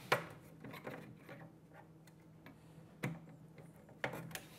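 Small clicks and taps of plastic and metal lock parts being handled and fitted together, the sharpest click just after the start and others around 1, 3 and 4 seconds in, over a faint steady low hum.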